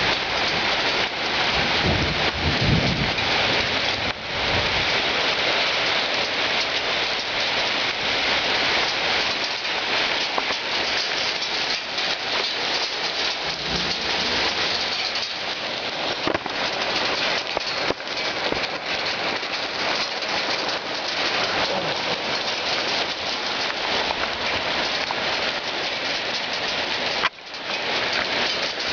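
Hail and heavy rain pelting down steadily, a dense patter of impacts. A low rumble of thunder sounds in the first few seconds.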